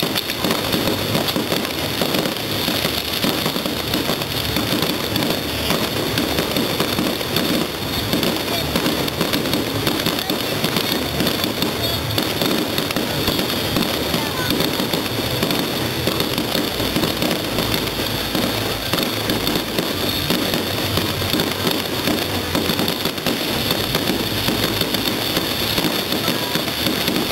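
Fireworks display: aerial shells bursting in a dense, unbroken run of bangs and pops, with no lull.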